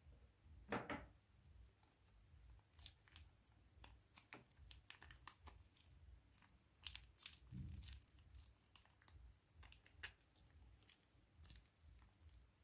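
Thin plastic piping bags crinkling and rustling as they are handled, with scattered light clicks and two dull thumps, one about a second in and one past halfway.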